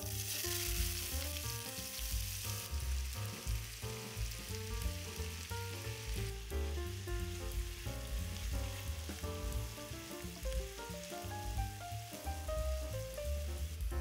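Food sizzling as it fries in a pan, loudest in the first few seconds and then steadier and softer, with background music underneath.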